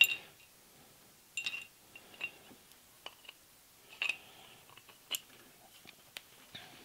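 Steel parts of a Hardinge collet closer clinking as they are handled and fitted together: about half a dozen light metallic clicks, spaced irregularly, a few with a short ring.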